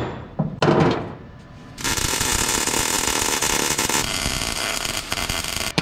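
Two sharp hammer knocks on sheet-metal car body, then a MIG welder's arc crackling steadily for about four seconds, with a brief break near the end: tack-welding a new floor rail into the chassis.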